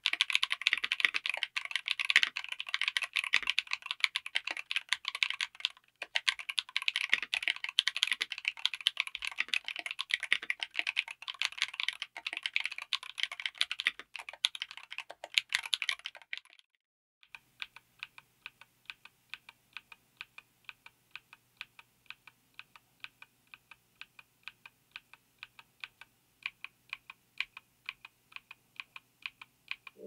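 Mechanical keyboard with Akko V3 Cream Blue Pro tactile switches on an FR4 plate in a Tofu60 aluminium case, under MT3-profile PBT keycaps, being typed on fast. The clicks are dense and continuous. After a short break about 16 seconds in, single keys are pressed one at a time in an even rhythm.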